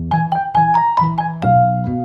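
Background music: a lively keyboard melody over a bass line, with new notes struck several times a second.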